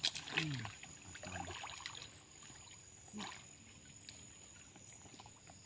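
Water sloshing and splashing as people wade chest-deep through a muddy stream, with a sharp splash right at the start and another about three seconds in.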